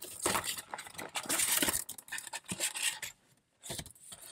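A small cardboard model-car box and its plastic insert being opened by hand: rustling and scraping with a few sharp clicks, dying down to a couple of short taps near the end.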